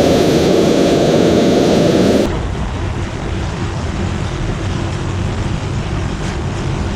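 Steady industrial machinery noise, a dense rumbling hiss. About two seconds in it switches abruptly to a quieter, lower rumble.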